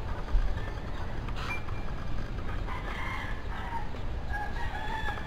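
A rooster crowing in the background over steady low background noise.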